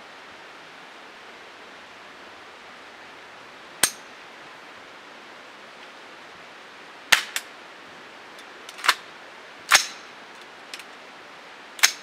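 Sharp metallic clicks and clacks from an AR-15 being worked by hand: the charging handle and bolt cycled while the rifle fails to fire and is cleared. One comes about four seconds in and the rest from about seven seconds on, a second or two apart, with a close pair among them.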